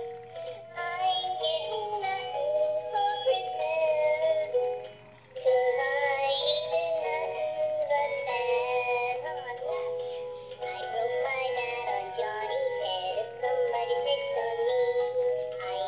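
Animated plush puppy toy singing a song, with a brief break about five seconds in.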